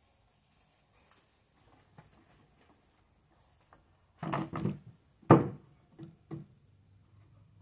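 Irregular knocks of wooden boards: a short clattering cluster about four seconds in, one sharp loud knock a second later, then two lighter knocks.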